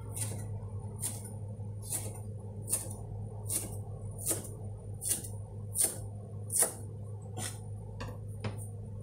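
Kitchen knife chopping herbs on a plastic cutting board: sharp, even cuts about one every 0.8 seconds, loudest in the middle.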